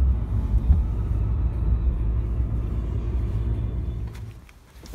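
Car engine idling close by: a steady low rumble that fades out about four seconds in.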